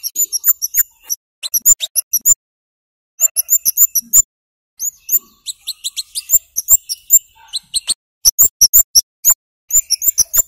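Scarlet-headed flowerpecker (kemade) calling: loud runs of very high, sharp 'cit' notes, several a second, broken by short pauses.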